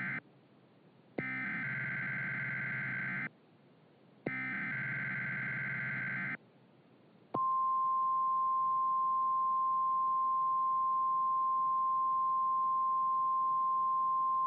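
Emergency Alert System SAME header: the end of one buzzing digital data burst and then two more, each about two seconds long with a second's gap between them. About seven seconds in, a steady single-pitch NOAA Weather Radio 1050 Hz alert tone starts and holds. Together they announce a new weather alert.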